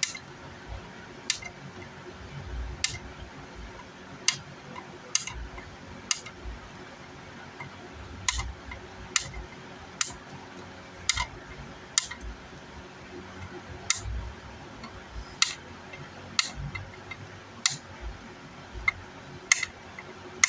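Wire cutters snipping off the excess leads of newly soldered output MOSFETs on an amplifier circuit board: sharp snips, more than a dozen, roughly one a second, with faint handling thumps between.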